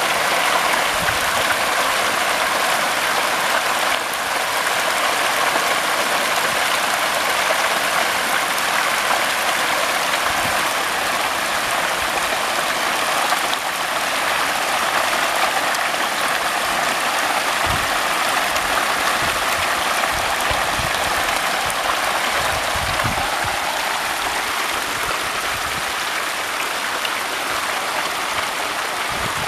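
Hybrid magur catfish crowding and thrashing in shallow water as they feed, a steady hiss of splashing.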